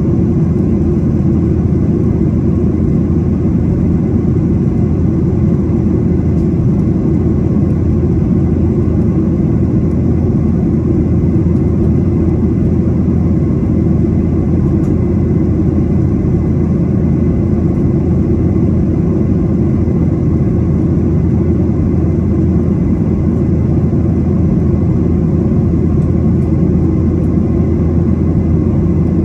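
Steady low drone of jet engines and rushing air inside a Boeing 737's passenger cabin in flight, heard from a seat by the wing, with a faint steady whine above it.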